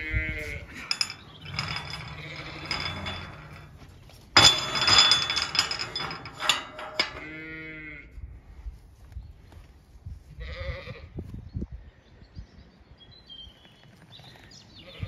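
Zwartbles sheep and lambs bleating now and then. A few seconds in, a rusty steel farm gate clanks and rattles loudly with a metallic ring as it is unlatched and handled.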